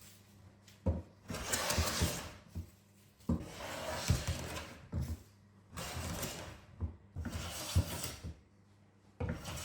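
Old wooden jointer plane taking repeated strokes along a construction-grade pine board to flatten out its twist, each stroke starting with a knock as the plane lands and followed by about a second of shaving hiss. About five strokes, with short pauses between them.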